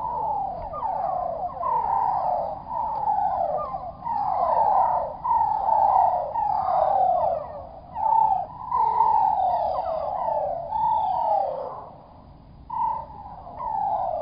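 A flock of purple martins calling, played back slowed down, so their chirps come out low and drawn out as a dense run of falling, warbling glides.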